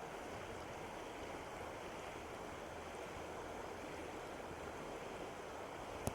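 River water flowing, a steady rushing. There is a single sharp click near the end.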